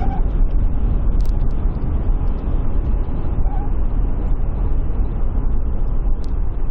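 Ford Everest driving at about 150 km/h: a steady low rumble of road and wind noise, with a few faint clicks. This is the sound that is called annoying.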